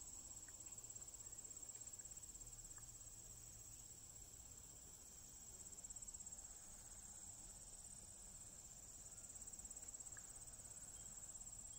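Faint, steady, high-pitched chorus of insects trilling.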